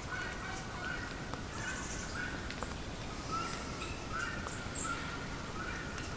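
Wild birds calling: a steady series of short, repeated calls with scattered higher chirps over faint outdoor background noise.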